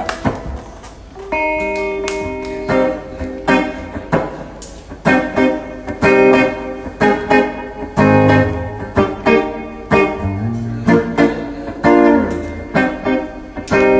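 Hollow-body archtop electric guitar played live through an amplifier: a rhythmic run of chords with sharp picked attacks, with low notes joining in about eight seconds in.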